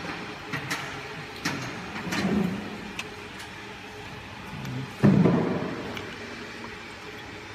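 Clicks and knocks of metal parts being handled as the chuck on a laser marker's rotary attachment is adjusted by hand, with a heavier bump about two seconds in and the loudest knock about five seconds in.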